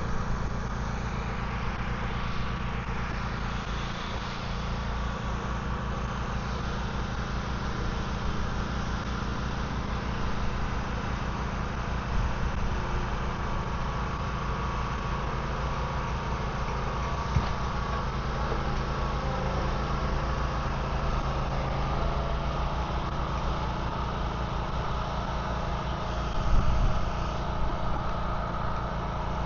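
A vehicle engine idling steadily, with a brief swell in level near the end and a couple of faint knocks.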